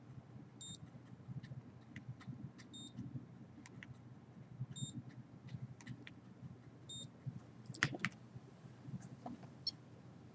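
Short, high electronic beeps from a handheld meter, four of them about two seconds apart, over scattered light clicks and a steady low hum. There is a louder click about eight seconds in.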